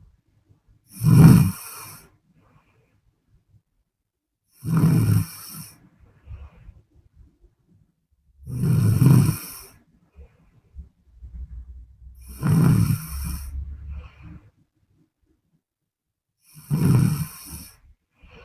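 A sleeping woman snoring, five snores in a regular rhythm about four seconds apart, each lasting about a second, with quiet breathing gaps between.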